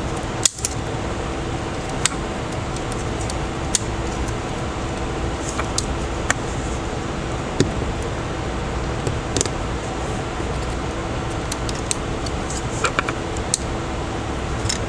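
Steady fan or air-conditioner hum, with scattered light clicks and taps of small tools at work on a smartphone being taken apart.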